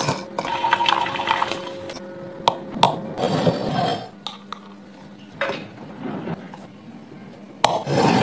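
Stainless steel mixer-grinder jar being handled on a counter: a few sharp clinks and taps, with short scraping sounds between them.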